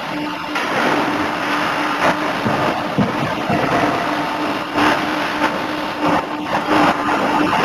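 Industrial 50 kJ forging hammer's machinery running with a steady hum and a constant tone, broken by a handful of irregular sharp knocks.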